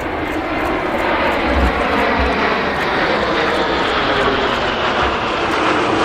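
Jet aircraft engines running steadily: a loud, even rushing noise with a faint high whine over it.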